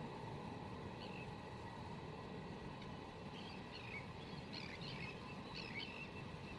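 Small birds chirping and warbling in short bursts, a few times, over a steady low outdoor rumble.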